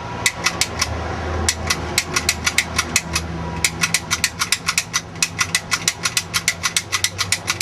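A locksmith's tools working a door lock: quick, sharp metal clicks at about five a second, with a brief pause about a second in, as he tries to pick it open. A low steady hum runs underneath.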